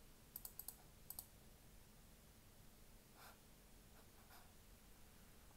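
Computer mouse button clicking: a quick run of about five sharp clicks in the first second or so, then near silence with room tone.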